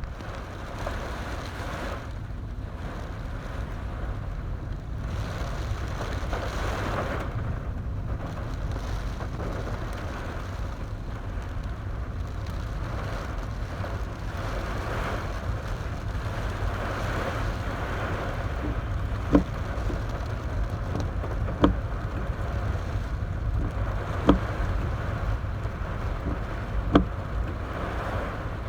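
Steady low rumble of a car driving in heavy typhoon rain, heard from inside the car, with rain noise over it. In the second half, short sharp knocks come about every two and a half seconds.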